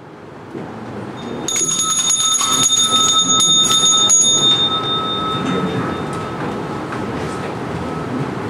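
A small handbell rung repeatedly for about three seconds, its bright ring dying away by about six seconds in, signalling the start of the service. Under it is the shuffling of a congregation getting to its feet.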